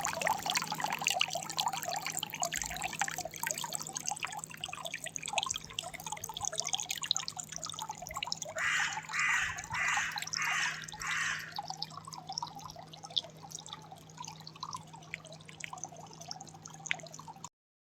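Water dripping and trickling in a dense patter of small splashes over a faint steady hum. About halfway through come five short, evenly spaced rushing bursts.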